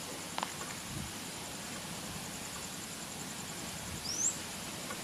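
Quiet rural outdoor ambience, a steady faint hiss, with one short rising bird chirp about four seconds in and a couple of faint clicks near the start.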